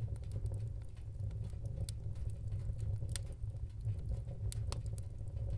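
Background ambience: a steady low rumble with scattered, irregular light ticks.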